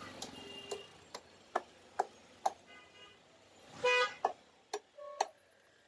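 Sharp knocks about twice a second as a pangas fish is cut up on a boti blade. A vehicle horn blasts briefly about four seconds in.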